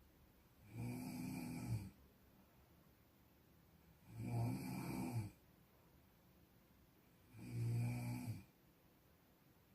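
Snoring: three snores about three seconds apart, each lasting about a second with a low buzzing drone.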